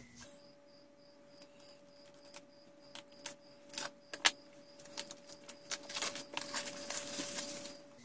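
Plastic shrink wrap on a DVD box set being slit with a small cutter and peeled off: scattered crinkles and crackles that grow denser near the end.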